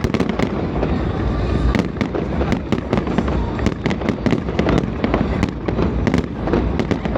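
A dense barrage of fireworks: many rapid, overlapping bangs and crackles over a steady low booming, without a pause.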